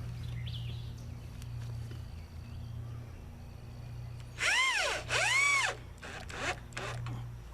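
Cordless drill-driver driving a Torx screw in two short trigger pulls, the motor's pitch rising and falling in each, a little over halfway through.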